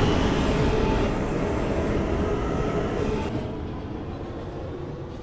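R160A subway train pulling away from the station, its rumble fading steadily as it recedes down the tunnel.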